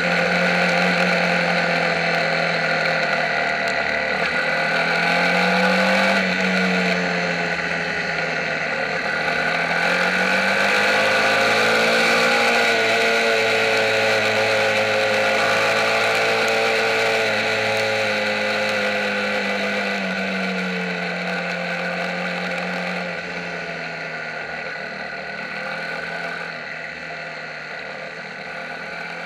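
Mini racing motorcycle engine heard from onboard, running at moderate, fairly even revs on a slow lap, its pitch rising and falling gently every few seconds with wind rush over the bike. It grows quieter over the last several seconds.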